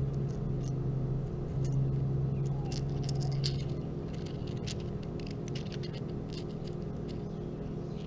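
Four small Swarovski cut-crystal pieces clicking and clinking together as they are turned over in the palm: light, irregular clicks, thickest around the middle.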